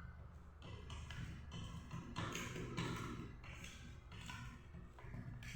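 Irregular light taps, knocks and scrapes of metal parts and tools being handled, as a home-made piston ring compressor cut from an oil filter is tightened around the piston.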